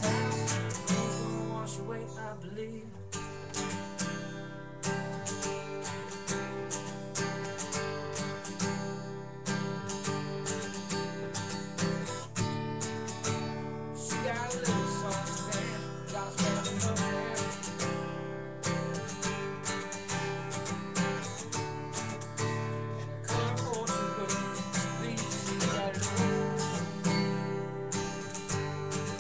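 Acoustic guitar strummed steadily, chord after chord.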